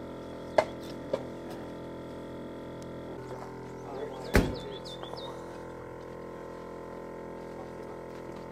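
Soft background music with steady held chords. Two sharp clicks come about half a second and a second in, and a loud thump a little after four seconds is followed by a few short high chirps.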